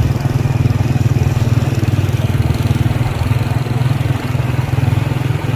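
A vehicle engine running steadily, a loud low drone with no change in speed.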